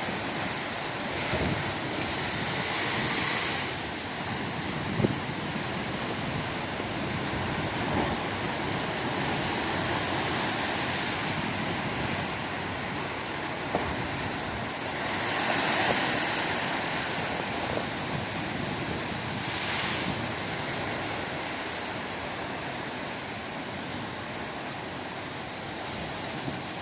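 Heavy ocean surf: big waves breaking and rushing in continuously, with louder surges of crashing water a couple of seconds in, about midway, and again a few seconds later.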